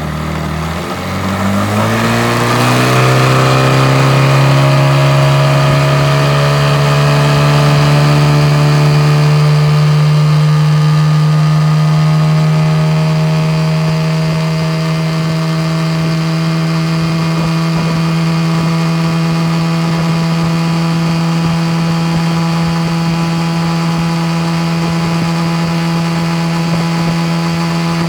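1974 Mercury 110 9.8 hp two-stroke twin outboard motor opened up from low speed, its pitch climbing steeply over the first few seconds. It then runs steadily at high speed, pushing the boat along.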